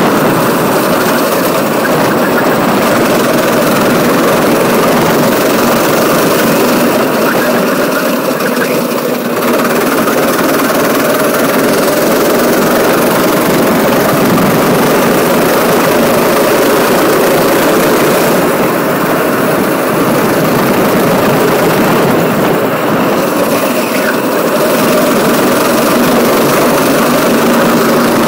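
Kart engine running hard at racing speed, heard on board, easing off briefly a few times.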